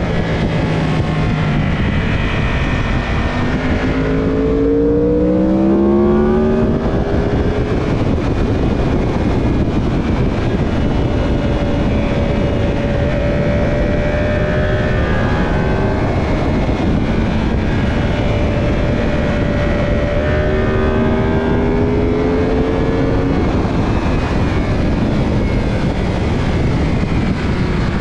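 Onboard sound of a Suter MMX 500 two-stroke V4 racing motorcycle at speed, heavily masked by wind rush. The engine climbs in pitch as it accelerates a few seconds in, holds steady through the middle, and climbs again later on.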